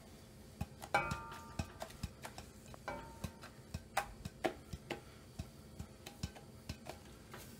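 Nonstick frying pan knocked and jostled on a gas stove's metal grate while an omelet is worked and rolled in it: an irregular string of clicks and knocks, the loudest about a second in with a short metallic ring.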